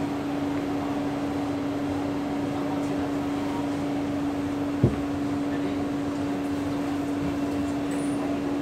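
SMRT C151A metro train running through a tunnel, heard from inside the car: a steady rumble with a constant hum. A single sharp knock comes about five seconds in.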